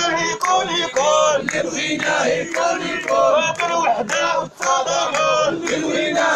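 Crowd of protesters chanting slogans in unison, with rhythmic hand clapping about twice a second.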